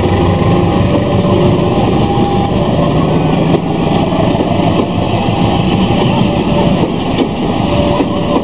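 Passenger train coaches rolling past close by: a loud, steady rumble of wheels on rails, with brief thin squeals now and then.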